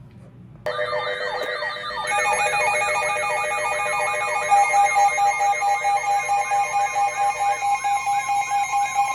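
Electronic emergency alert tones that start abruptly under a second in: several steady tones layered with a warbling, siren-like sweep that repeats a few times a second. More steady tones join about two seconds in, and near the middle the sound grows louder and pulses.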